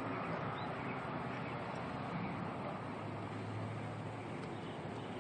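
A faint, low, steady hum over a hiss of outdoor background noise, growing a little stronger about three seconds in. It is the unexplained sound from the sky that the recorder cannot identify.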